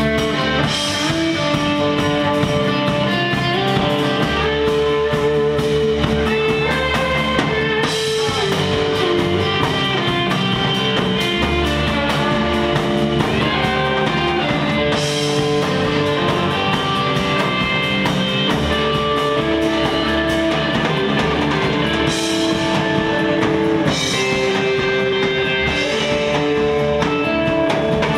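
Live instrumental surf rock: electric guitar playing a melody over bass guitar and drum kit.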